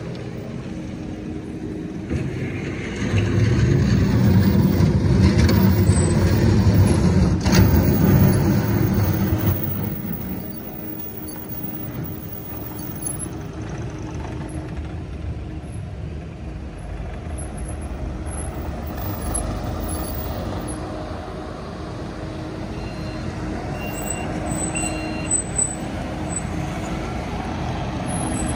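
Diesel engine of heavy demolition machinery running with a steady low rumble, much louder for several seconds early on before dropping back, with a single sharp clank partway through. A few short high beeps sound near the end.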